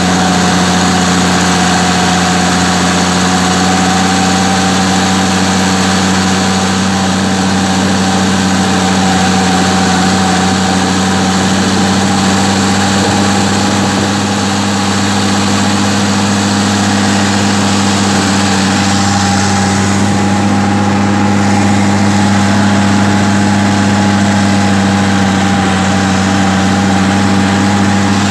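Massey Ferguson 399 tractor's six-cylinder diesel engine running at a steady speed as the tractor drives along, heard from the driver's seat.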